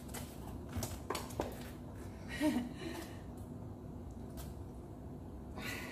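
A few sharp clicks from a hand staple gun pressed against the back of a picture frame, driving staples through the canvas stretcher into the moulding. About two and a half seconds in, a brief vocal sound like a gasp.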